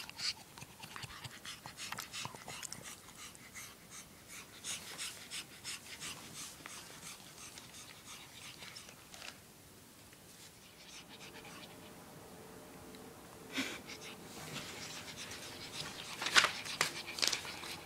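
Short-haired Brussels griffon panting with its mouth open: quick, airy breaths about three a second. They fade for a few seconds midway and return louder near the end.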